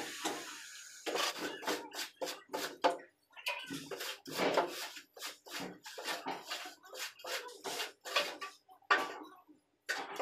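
Metal straightedge scraped back and forth across a wet sand-cement mortar bed to level it for floor tiles: a run of short, rough scraping strokes, a couple a second, with brief pauses between.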